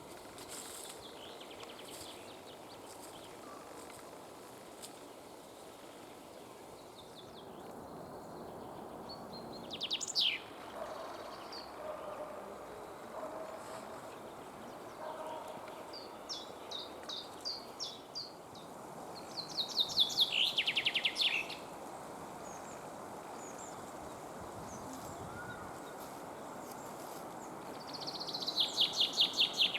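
Common blackbird giving sparse high notes over steady background noise, then a common chaffinch singing its fast trill that falls in pitch and ends in a flourish, twice in the second half.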